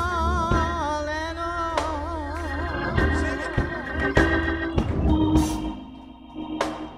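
Gospel accompaniment led by an organ holding wavering, vibrato chords over a deep bass, with sharp percussive hits; it grows quieter near the end.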